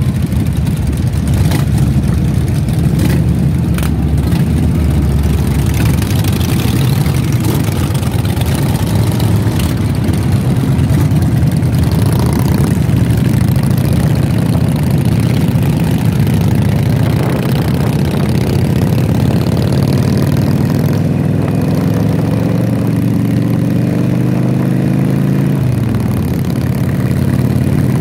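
Harley-Davidson Sportster V-twin engines running loud under the camera rider, with other motorcycles close by. In the last third one engine climbs steadily in pitch as it accelerates, then drops sharply at a gear change a couple of seconds before the end.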